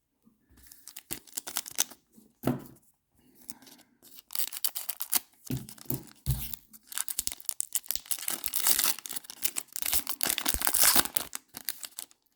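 Trading card pack wrapper being torn open and crinkled, with the cards handled and slid against each other. There are a few light handling sounds at first, then a dense run of ripping and crinkling from about four seconds in until just before the end.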